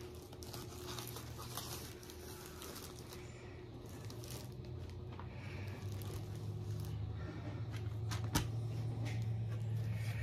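Rustling and rubbing of a long cloth sleeve and a paper card being handled, with scattered small clicks and one sharp click about eight seconds in, over a steady low hum.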